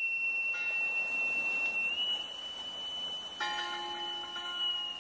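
A steady high-pitched tone held throughout, stepping up slightly in pitch about two seconds in, with fainter ringing tones joining twice.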